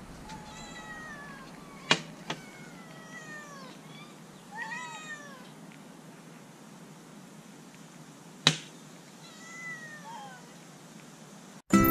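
Cats meowing: about five drawn-out meows, each falling in pitch, most of them in the first five seconds and one more near the end. Two sharp clicks come about 2 seconds in and about 8.5 seconds in.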